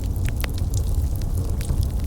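Fireplace fire crackling: irregular sharp pops and snaps, several a second, over a steady low rumble of the flames.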